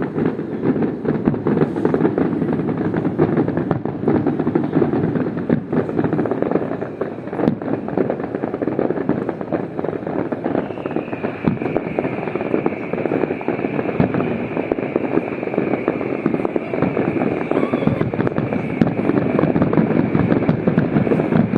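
Fireworks going off as a dense, continuous crackle of rapid pops. About halfway through, a steady high whistle joins in and holds.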